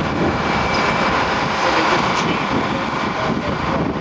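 Rail pickup work train's engines and rail-lifting machinery running in a steady, loud mechanical din as old track rail is pulled up into the train.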